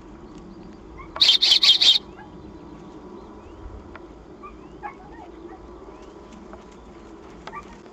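Dog whistle blown in a quick run of about four loud, high-pitched pips about a second in. Faint bird chirps come and go over a steady low hum.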